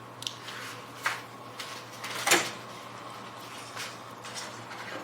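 A few short knocks and scrapes of kitchen things being handled, the loudest a little over two seconds in, over a steady low hum.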